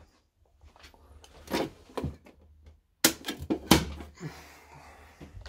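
Handling sounds at a home electrical panel: a few knocks, then about three seconds in a cluster of sharp plastic clicks and snaps as the panel's cover is worked and a switch is flipped to put the lights on backup power, followed by a hiss.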